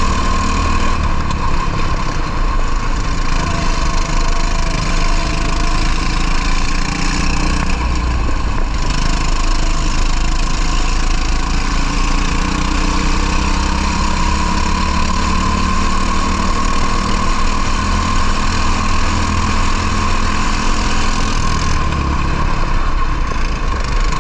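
Racing kart engine running hard at speed, its pitch slowly rising and falling as the revs change through the corners.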